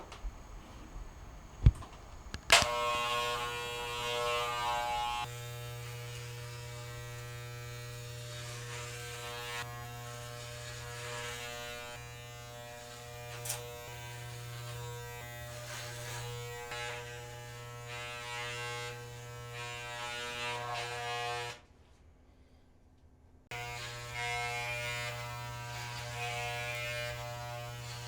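A small electric motor buzzing steadily at a fixed pitch, starting after a sharp knock about two seconds in. It cuts out for about two seconds near the end, then starts again.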